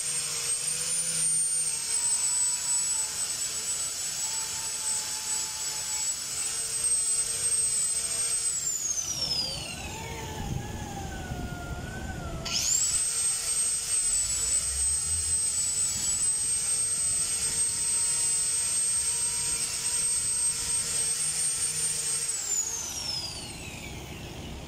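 Handheld electric angle grinder running at speed with a high whine, cleaning hardened old gasket off the underside of an engine block. About eight seconds in it is switched off and winds down, it is started again about four seconds later, and it winds down once more near the end.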